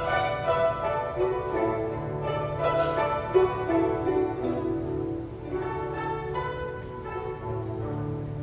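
Guzheng ensemble playing a flowing melody of plucked, ringing notes over a held low tone.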